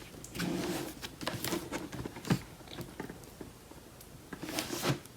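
A plastic-wrapped cardboard box being handled and turned: crinkling and rustling of the plastic cover with light taps and clicks.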